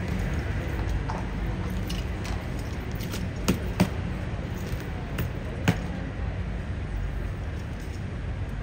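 Street ambience: a steady low traffic rumble under faint crowd noise, with a few sharp knocks, two close together about midway and one more a couple of seconds later.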